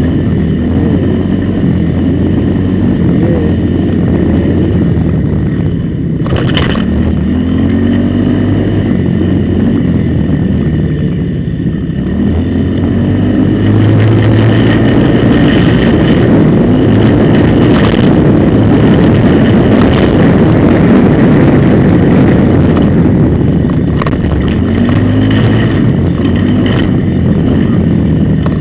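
A motor vehicle's engine running while riding along a road, with continuous road noise. The engine pitch rises and falls several times as it speeds up and eases off.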